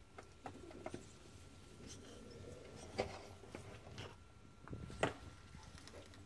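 Faint scratching and rustling in bark-chip substrate as a monitor lizard grips and works a live rat in its jaws, with a few sharp clicks, the loudest about three seconds in and again about five seconds in.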